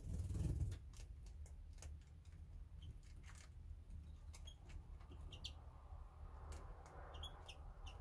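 Small finches in an aviary giving a few short, faint chirps, among scattered light clicks and taps. A dull thump about half a second in is the loudest sound.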